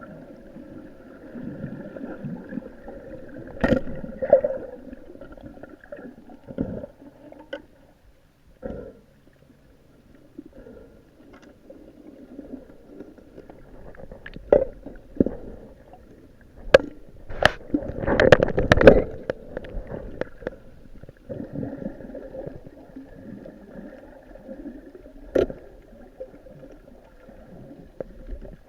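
Muffled underwater sound as heard by a diving camera: a steady low rumble with a faint hum, broken by a few sharp clicks and knocks. The loudest spell is a quick run of knocks about two-thirds of the way through.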